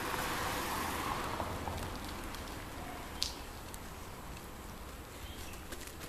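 Quiet residential street ambience: the noise of a passing vehicle fades over the first two seconds. A single short, high chirp comes a little after three seconds in, with a few faint ticks later.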